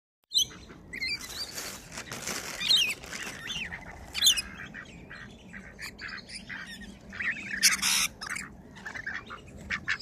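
Birds calling at close range while being hand-fed: a young black swan and an adult black swan with many short, high chirps and squeaky, gliding calls. A few brief hiss-like bursts come in, near the second second and again near the eighth.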